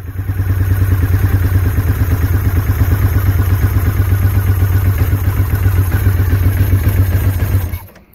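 Suzuki TL1000S's 996 cc V-twin running at a steady, even idle with its airbox removed and its throttle bodies open. It stops abruptly near the end.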